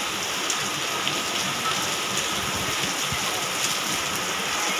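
Heavy rain falling steadily on a paved courtyard, an even hiss of drops hitting wet concrete.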